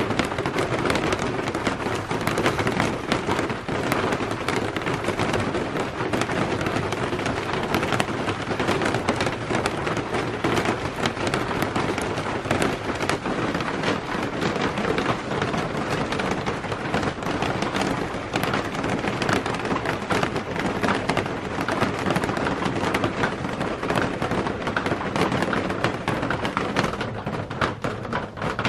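Steady rain pattering on a clear corrugated plastic roof, a dense crackle of countless drops that thins out near the end.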